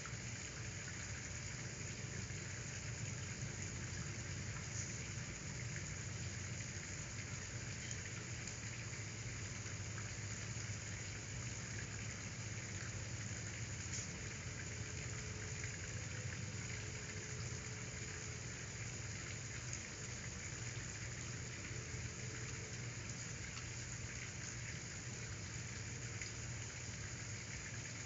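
Steady background hiss with a constant low hum underneath, unchanging throughout, with a faint click about halfway through.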